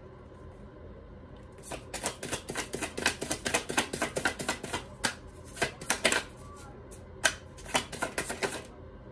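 A deck of tarot cards being shuffled overhand: a fast run of sharp clicks and flicks as the cards drop from one hand into the other, starting about two seconds in and stopping just before the end.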